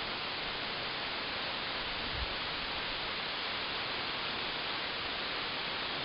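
Steady, even rush of a waterfall, with a soft low thump about two seconds in.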